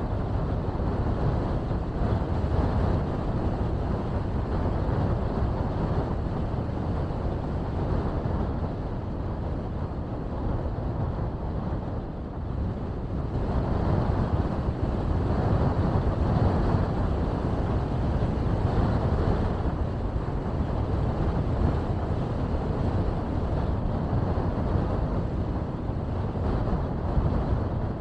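Steady rushing road and wind noise from a car driving along a mountain road, getting somewhat louder about halfway through.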